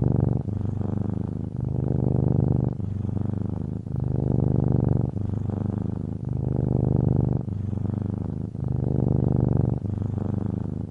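Domestic cat purring, a continuous low rumble that swells and eases with each breath in and out, alternating about once a second in a steady rhythm.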